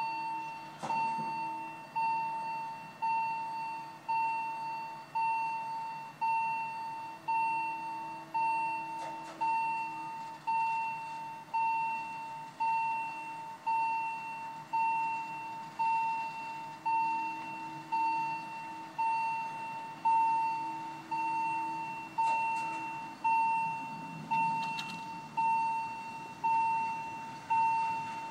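Swiss level crossing warning bell striking steadily about once a second. Each strike is a single clear ringing tone that dies away before the next.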